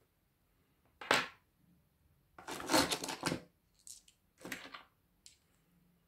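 Small stones being handled on a tabletop: a sharp knock about a second in, a denser clatter of stone on stone and table near the middle, then a few lighter clicks.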